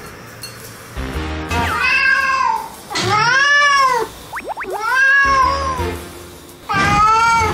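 Domestic cat yowling: four long, drawn-out meows, each rising and then falling in pitch, over background music with a bass beat.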